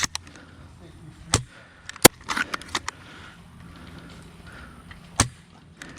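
Airsoft gunfire: sharp single shots, the loudest about two seconds in, followed at once by a quick run of smaller snaps and another shot near the end.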